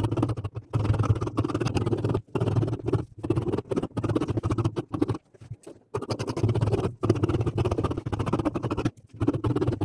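Scissors cutting through Ankara cotton fabric on a tabletop: a rapid run of snipping, crunching strokes, broken by short pauses.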